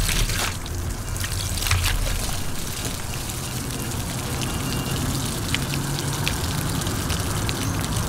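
Water spurting out of a pierced water balloon and splashing onto a plastic table, loudest in the first moment, then trickling and dripping off the wet table as the balloon empties. The hole is torn too large, so the balloon drains in a rush instead of holding a smooth stream.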